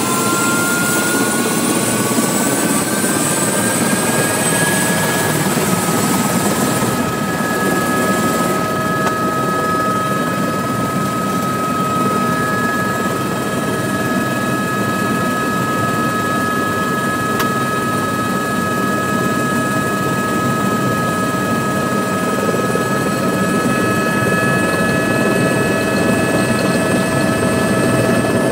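Helicopter in flight heard from inside its cabin: a loud, steady rush of engine and rotor with a high whine that rises slightly over the first few seconds, then holds steady.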